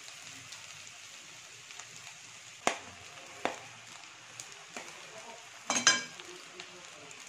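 Low frying sizzle from egg and spices in a steel pan as cooked rice is tipped in. A few sharp knocks against the pan are heard, and the loudest, a short ringing clatter, comes about six seconds in.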